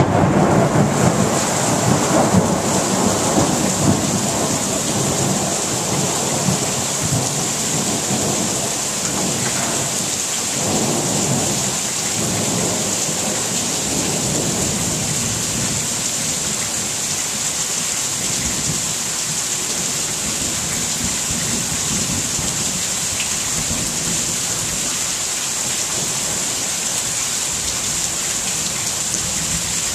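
Steady rain falling in a thunderstorm. A rumble of thunder at the start dies away over the first few seconds.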